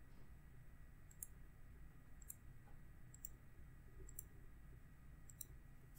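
Faint computer mouse clicks, about six of them roughly a second apart, over quiet room tone.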